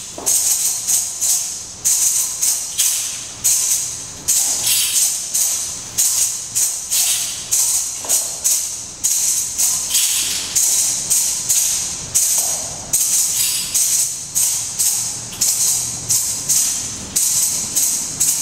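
Shaken hand percussion with jingles or beads playing a steady rhythm: bright, hissing strokes about two a second.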